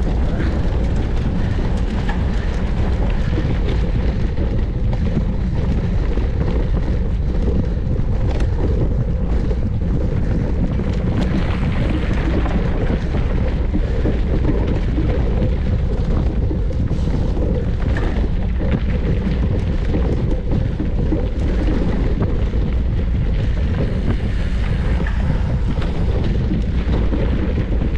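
Steady wind noise buffeting the microphone of a camera on a mountain bike ridden at race speed, with the low rumble of the ride underneath.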